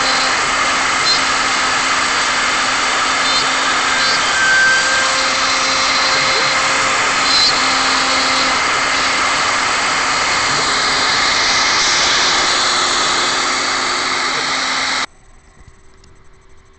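CNC router spindle running and cutting through MDF: a loud, steady machining noise with a few brief high squeaks. It stops abruptly near the end, leaving only a faint hum.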